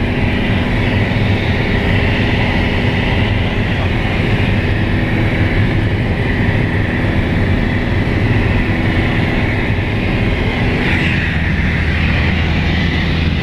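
Steady drone of a single-engine light aircraft's piston engine and propeller in flight, heard inside the cabin.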